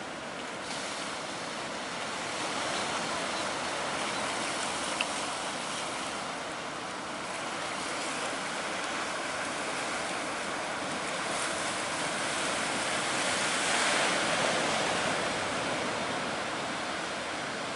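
Heavy ocean surf breaking and rushing, swelling and easing, loudest about three-quarters of the way through.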